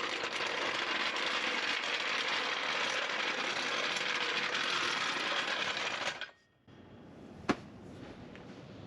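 A traditional floor jack's caster wheels clattering loudly as the jack is rolled along. The noise cuts off suddenly about six seconds in, leaving a quieter stretch with a single sharp click.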